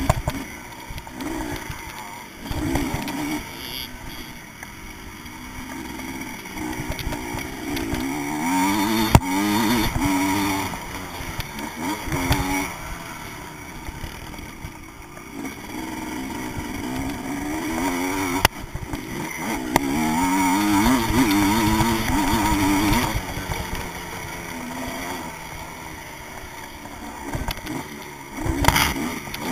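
Vintage motocross bike engine heard from a camera mounted on the bike, revving up in repeated rising sweeps and falling back again as it is ridden hard around a dirt track, with a few sharp knocks.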